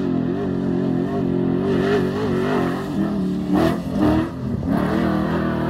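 LQ9 V8 of a long-travel 2001 Chevy 1500 pickup running hard across the desert, its pitch rising and falling as the throttle is worked. A short rush of noise comes about three and a half seconds in.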